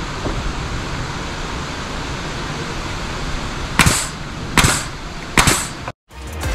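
Steady outdoor background noise, then three sharp nailing strikes into the barn's wooden framing, a little under a second apart, each trailing off briefly. After a sudden cut near the end, music starts.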